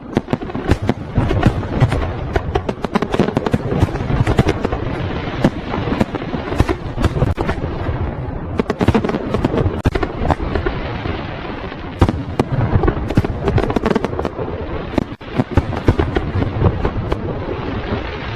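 Fireworks display: a dense run of rapid bangs and crackles over a continuous rumble, with louder single reports now and then.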